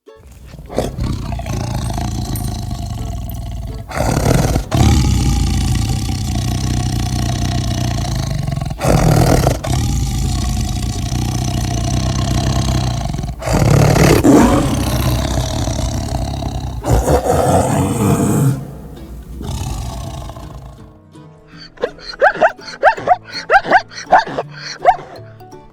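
Big cat roaring over background music, with several louder roars through the first part. After that, a quieter run of short, evenly repeated sounds.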